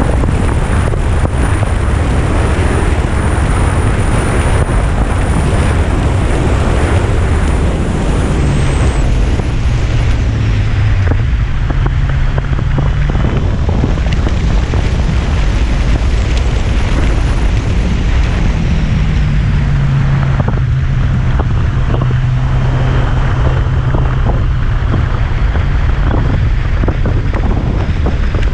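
Wind rushing over the microphone of a moving Yamaha FJR1300 motorcycle, with the engine's inline-four hum underneath. The engine note rises and falls with the throttle about a third of the way in and again past halfway.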